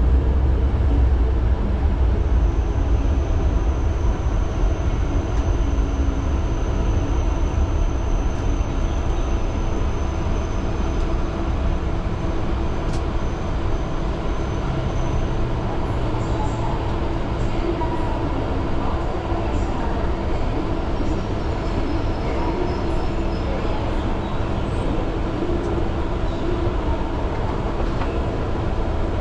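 Tohoku Shinkansen Hayabusa train running, a steady low rumble and rush of running noise that eases slightly, with a faint high tone through the first half.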